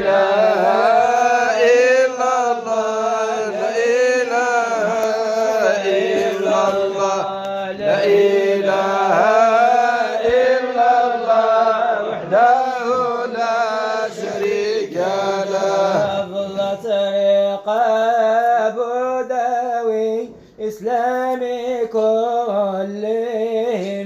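A solo voice singing a slow, ornamented Arabic Islamic praise chant (madih) over a steady low held drone, with brief breaks between phrases.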